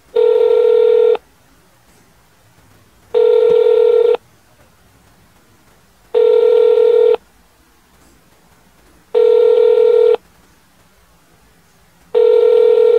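Telephone ringback tone heard over a phone call while the call rings through unanswered: five steady one-second tones, one every three seconds.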